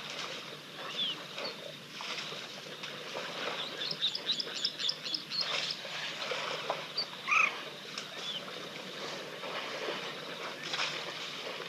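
Waterhole ambience: African elephants wading and stepping through mud and shallow water, with splashing and sloshing. A bird gives a rapid run of high notes about four seconds in, and a short, louder call comes about seven seconds in.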